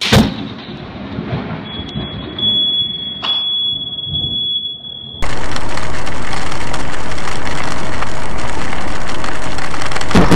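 A sharp close thunderclap that dies away into rumbling thunder, with a steady high-pitched electronic beep lasting a few seconds. About five seconds in it switches abruptly to the loud, steady rush of heavy rain and road noise inside a car driving through a downpour, with a burst near the end as lightning strikes the road ahead.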